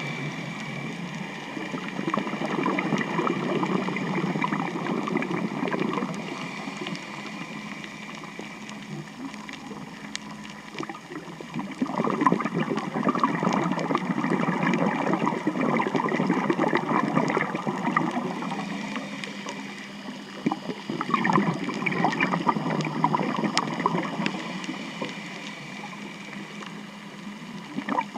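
Boat traffic heard underwater: boat engines and propellers churning, with gurgling water noise that swells and fades in several surges and a faint steady hum underneath.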